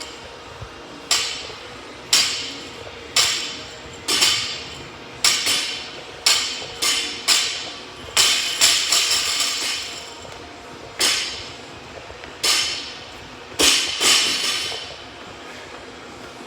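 A loaded barbell dropped back to the floor rep after rep during deadlifts. Each rep is a sharp metal clank that rings briefly, about one a second, with a pause about two-thirds of the way through.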